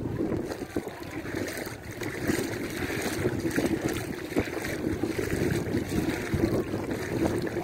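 Wind buffeting the microphone over gently lapping sea water, an uneven rushing noise that stays steady throughout.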